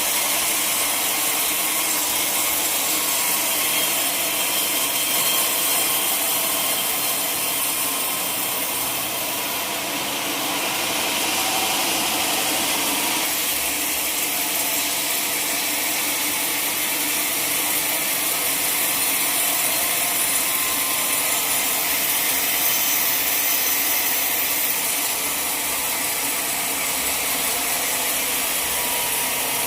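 Sawmill saw cutting lengthwise through a large log, a loud steady hiss with little change.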